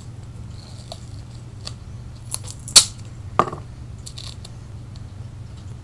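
Hands working tape onto a small handmade bow: a few sharp clicks and taps, bunched together a little over halfway through with the loudest near the middle of them, over a steady low hum.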